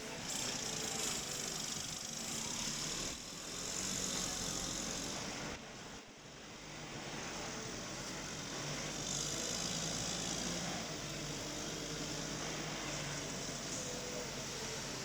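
Forklift engine running steadily, with a constant hiss over it and a brief dip in level about six seconds in.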